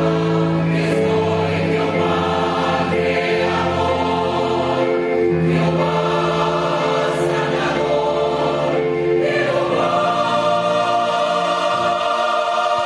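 Large mixed choir of men's and women's voices singing in sustained chords, with deep bass notes under the upper parts; the harmony moves to a fuller, higher chord about ten seconds in.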